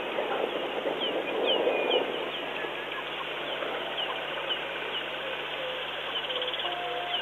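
Wild birds calling in the bush: repeated short, falling chirps, a brief fast trill near the end and a series of short lower notes, over a steady low hum. A louder noisy swell comes about one to two seconds in.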